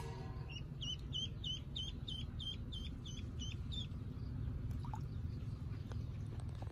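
A duckling peeping about ten times in quick succession, roughly three peeps a second, stopping about four seconds in, over a steady low rumble.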